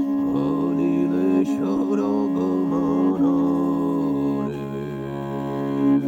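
Tuvan drone music: a loud steady drone note with overtones, with a melody wavering and sliding above it for the first few seconds before settling into held notes.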